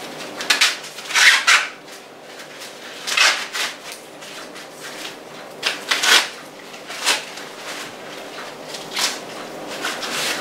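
Corn husks rustling and tearing as they are pulled back and stripped from the cob by hand, in about eight short rustles.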